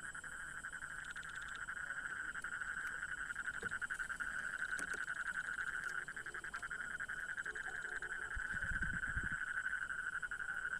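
A steady, rapidly pulsing chorus of calling frogs and insects, with a brief low rumble about eight seconds in.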